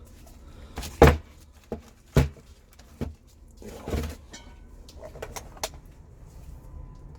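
A handful of separate sharp knocks and clatters, roughly a second apart, over a low steady hum.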